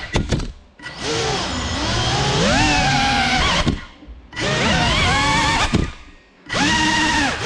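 GEPRC Cinelog35 cinewhoop FPV drone's motors and ducted propellers whining, the pitch rising and falling with the throttle. The whine drops almost to nothing three times as the throttle is cut: about half a second in, around four seconds in, and again around six seconds in.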